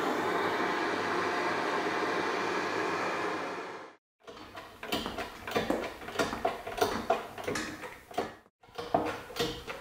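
Bullfinch Autotorch gas torch burning with a steady hiss for about four seconds, heating a steel housing to expand it for a press fit. After a short break, a run of irregular clicks and knocks as a hydraulic shop press pushes a bronze bush into the housing.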